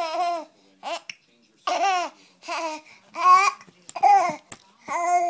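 Young child laughing and babbling in short, high-pitched bursts, about one every second.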